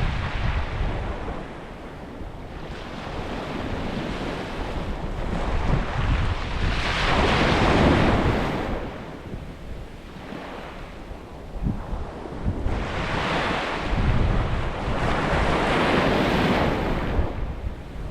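Ocean waves breaking on a beach, surf swelling and washing back in slow surges every few seconds, with wind buffeting the microphone as a low rumble.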